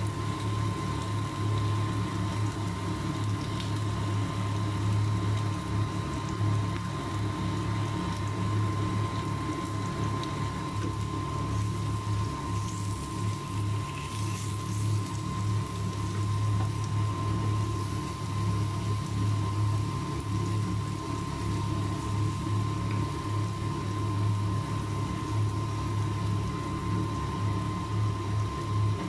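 Bacon sizzling and crackling on a hot electric grill plate, over a steady low hum, with a few sharper crackles about halfway through.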